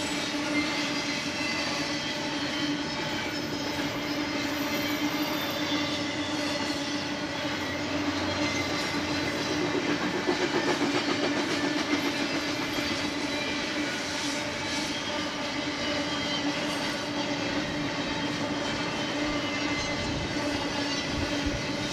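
BNSF double-stack intermodal train's container well cars rolling past: a steady rumble and clatter of steel wheels on rail, with a continuous tone running through it, a little louder about ten seconds in.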